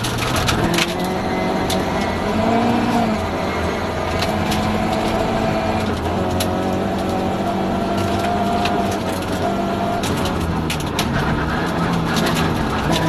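Rally car's engine running hard at speed, heard inside the stripped, roll-caged cabin, its pitch wavering a little with throttle. Loose gravel and stones tick and clatter against the underbody throughout.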